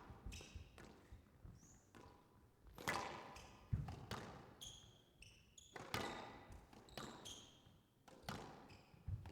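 Squash rally: the ball cracking off rackets and the walls in sharp, echoing hits every one to two seconds, with short high squeaks of players' shoes on the court floor between them.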